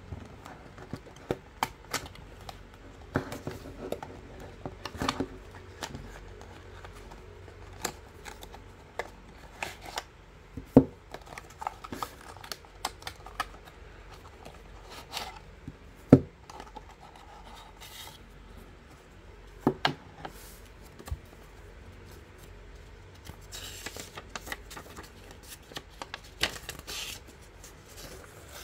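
Paperboard playing-card box being handled and opened by hand: a run of scattered clicks and taps of cardboard flaps, two of them sharper about 11 and 16 seconds in. Near the end comes a rustle of paper as a folded rules sheet is unfolded.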